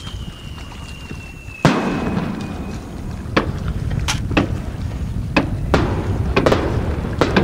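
Aerial fireworks bursting over water: a loud bang about a second and a half in, then a quickening series of sharp bangs and pops. A thin firework whistle slowly falls in pitch and fades out about three seconds in, over a steady low rumble.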